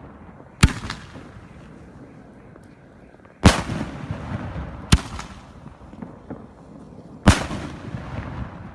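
Four sharp bangs from homemade aerial firework salutes bursting overhead at uneven intervals, each trailing off in a rolling echo.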